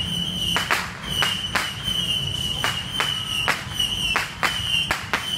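Fireworks and firecrackers going off in a string of sharp bangs and cracks, about two a second at uneven spacing, over a steady high-pitched tone.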